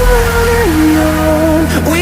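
Background pop song: a melody of long held notes that steps down and back up over a steady bass.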